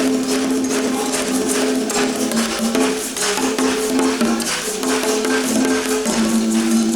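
Background music: sustained melodic notes that step up and down in pitch over a steady percussion beat.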